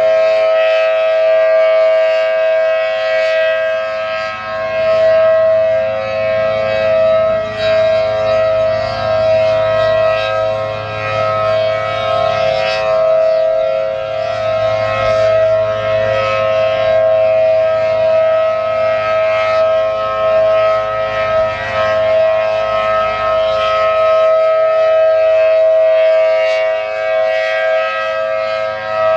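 ACA Allertor 125 outdoor warning siren with 10/12-port rotors, sounding the steady Alert signal: a loud, constant two-note chord at unchanging pitch, its level swelling and dipping slightly.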